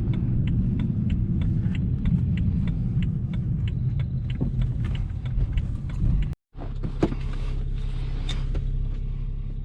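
BMW 335i's N54 twin-turbo straight-six engine running steadily during warm-up, with a regular light clicking over it for the first six seconds. The sound cuts out for a moment about six seconds in, then the engine continues.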